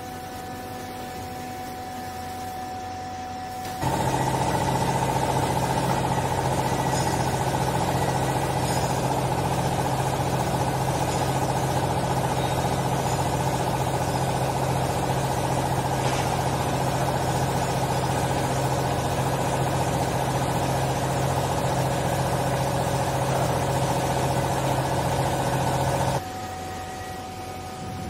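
Vertical hydraulic clothes baler's electric motor and hydraulic pump starting suddenly about four seconds in and running with a loud, steady hum. It runs for about twenty seconds while the ram presses the clothes, then cuts off sharply near the end.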